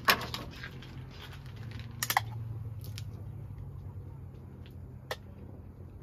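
A drink can being shotgunned: a loud knock as it is handled at the start, then a sharp crack about two seconds in as the tab is popped and the drink rushes out, and a lighter click later on. A steady low hum runs underneath.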